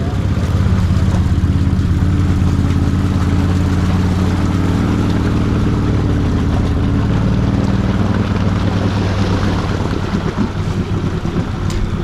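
Can-Am Renegade 1000R ATV's V-twin engine running at a steady pace under load as the quad wades through a deep, water-filled mud hole.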